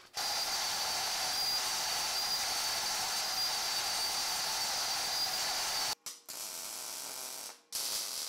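Stand-mounted metal-cutting bandsaw cutting steel plate, a steady hiss with a thin high whine from the blade. After a short break, a MIG welder hisses and crackles near the end as it welds the steel.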